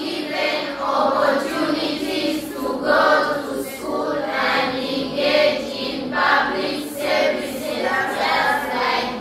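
A class of schoolchildren reading a sentence aloud together in unison, echoing it phrase by phrase after the teacher.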